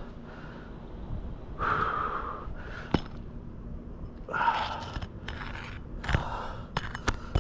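Scraping and sharp clicks of a pry tool working under asphalt roof shingles to free them, in a few short bursts.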